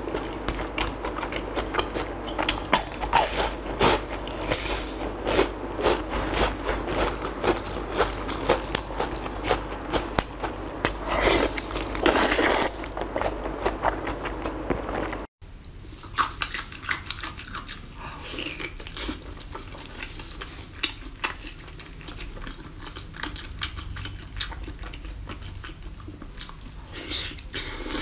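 Close-miked chewing and crunching of fried food, with loud slurps of noodles about twelve seconds in. After an abrupt cut about halfway, quieter chewing of tender meat, torn apart by gloved hands.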